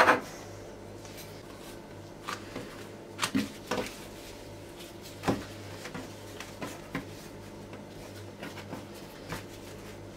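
Light rustling and a few soft taps as thin, dry yufka pastry trimmings are peeled up and gathered off a wooden board, over a faint steady hum.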